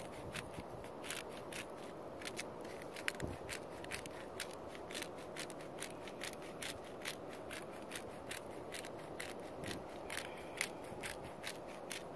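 Peppercorn grinder being twisted by hand, its grinding mechanism clicking evenly about four times a second over a steady low background noise.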